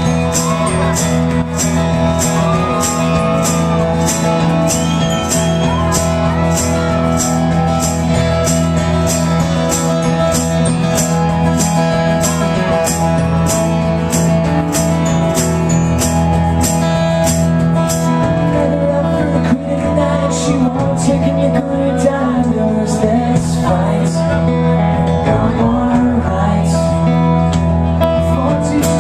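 Live acoustic band music: an acoustic guitar strumming under a steady tambourine beat through roughly the first two-thirds. A man's singing voice comes in during the last third.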